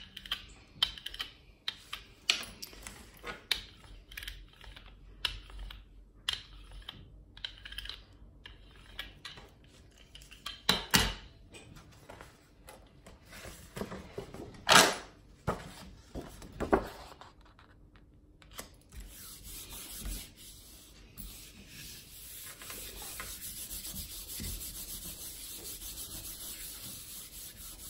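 A hand-held brayer rolling and clicking over a gel printing plate, with a couple of louder knocks. Then a steady hiss of a palm rubbing a sheet of paper down onto the inked plate to lift the print.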